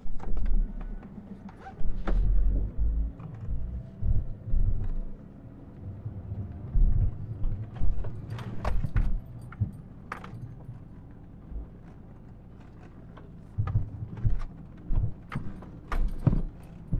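Ford Ranger 2.2 L turbo-diesel pickup camper driving over a rough, stony desert track: the engine hums steadily under a jumble of irregular knocks, thumps and rattles from the truck jolting over bumps, with a calmer stretch about two-thirds of the way through.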